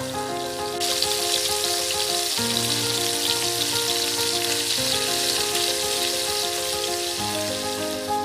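Food sizzling as it fries in a pan, a dense hiss that gets louder about a second in and cuts off abruptly at the end. Background music with slow chord changes plays underneath.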